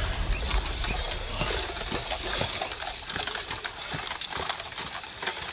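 Irregular clicks and clatters of plastic stormtrooper armour and footsteps as armoured troopers run up through the forest, over a steady high hiss. A low rumble fades out in the first second or so.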